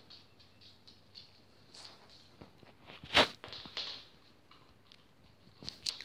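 Light clicks and patter of a Cavalier King Charles spaniel moving about on a laminate floor, with one sharp, louder knock about three seconds in.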